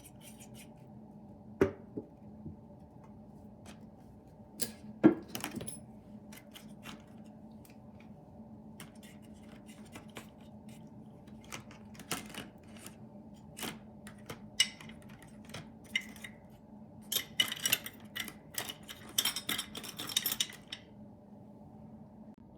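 Small die-cast metal model parts clinking and clattering as they are handled and dropped into a container, in scattered sharp clicks with a denser rattle near the end. A faint steady low hum runs underneath.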